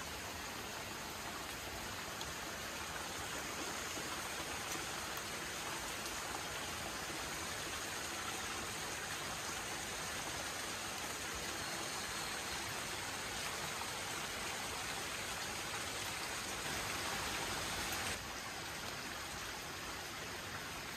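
Heavy rain pouring down steadily, a dense even hiss of drops, with a slight dip in level near the end.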